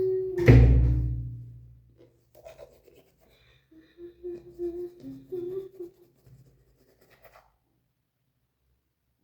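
Music added in the edit: a deep, loud hit about half a second in that dies away over a second or so, then a short run of held notes.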